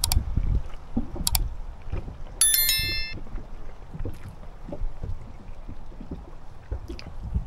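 Small boat on the water: irregular low thumps of water against the hull and wind on the microphone, with no engine running. Two sharp clicks come in the first second and a short metallic ring about two and a half seconds in.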